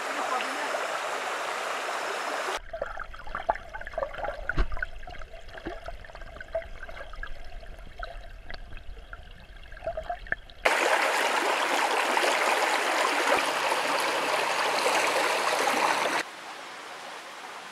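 Steady rushing water, heard in several edited stretches of different loudness. It is loudest near the end, and a quieter middle stretch holds scattered clicks and a low rumble.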